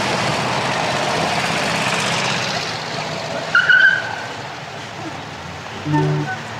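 A car driving past, its engine and tyre noise loud at first and fading after about two and a half seconds, with a short high tone about three and a half seconds in. Music notes start near the end.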